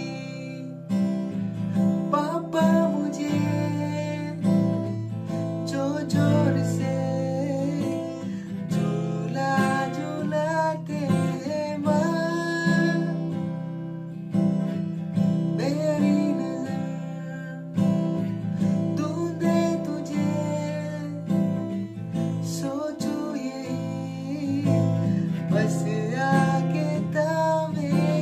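Acoustic guitar playing a slow instrumental passage, plucked and strummed, with a melody line above it that bends in pitch.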